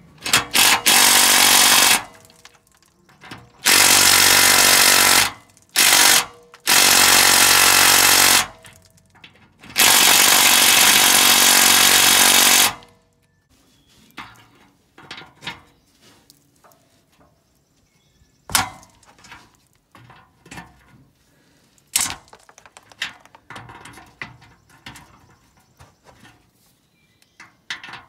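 Cordless impact wrench hammering at the rusted muffler clamp bolts under an International S1900 dump truck, in five bursts over about the first thirteen seconds. After that come scattered light clicks and a few sharp knocks of a hand wrench on the bolt.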